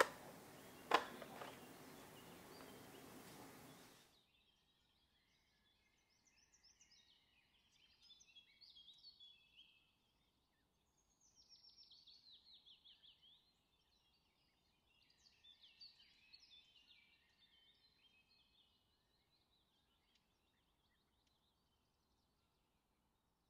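Two sharp clicks in the first second over a low hiss, which cuts off about four seconds in. Then faint bird song comes and goes: short phrases of high chirps and quick trills.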